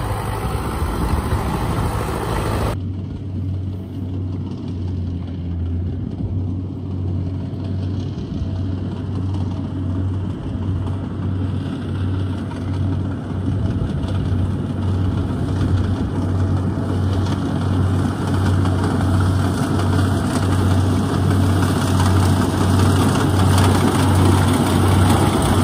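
Kubota DC70 combine harvester's diesel engine running steadily as the machine drives, an even low throbbing hum. About three seconds in, the higher hiss above it drops away suddenly, and the engine grows a little louder near the end.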